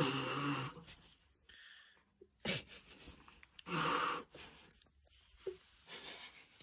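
A man making playful breathy vocal noises to a baby, close up: three bursts of huffing and puffing, the first with some low voice in it.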